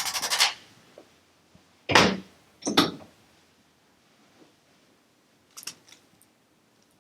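Hands rubbing over the back of the neck, stopping about half a second in. About two seconds in come two sharp cracks less than a second apart: the neck joints releasing under a manual chiropractic adjustment of a tight, locked-up neck. A few faint clicks follow later.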